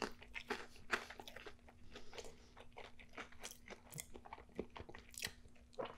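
Close-miked chewing of a mouthful of crusty toasted sandwich with crispy chicken and onion rings: quiet, irregular crunches and wet mouth clicks.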